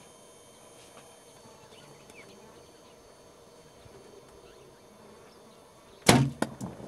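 Faint buzzing of flies, then about six seconds in the sudden loud snap and thump of a bow being shot at a feeding gemsbok. A few sharp knocks and scuffles follow as the animal bolts.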